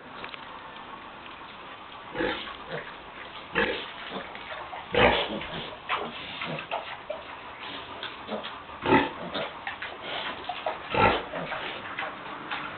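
Piglets grunting in short, irregular bursts, the loudest about five, nine and eleven seconds in.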